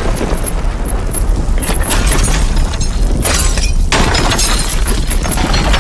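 Crash sound effect: a loud, continuous rumbling, crumbling and shattering noise with a deep rumble underneath, cutting off suddenly at the end.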